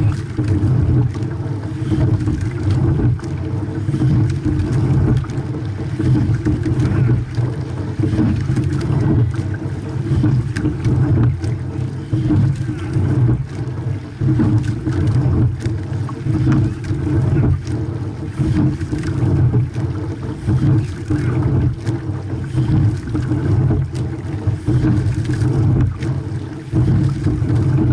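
A racing double scull under way, heard from its deck: a steady rush of water along the hull and wind on the microphone, swelling and dipping roughly every two seconds with the rowing strokes, with light clicks and knocks from the oars and rigging.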